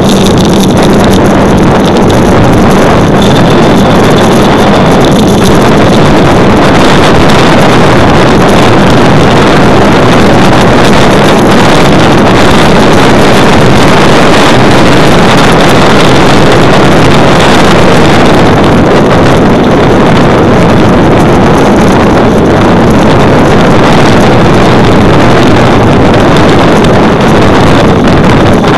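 Wind buffeting a bicycle-mounted camera's microphone at speed: a loud, steady rushing roar.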